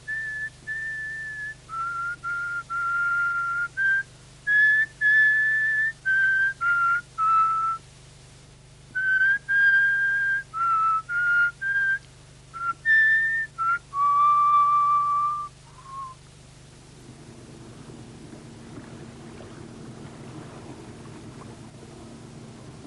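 A whistled tune of short held notes, the programme's signature melody, ending about 16 seconds in. It gives way to a low steady hum of a motorboat engine running across the water.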